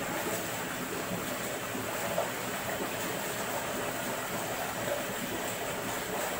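Steady splashing and churning of water as children kick and thrash in an inflatable pool.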